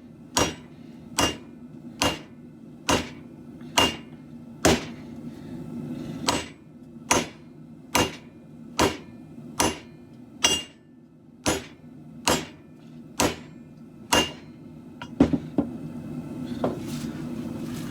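Hand hammer striking a hot steel khopesh blade on an anvil in a steady rhythm, a little over one blow a second, some blows ringing briefly. The blows slow and stop in the last few seconds, over a steady low hum from the propane forge burner.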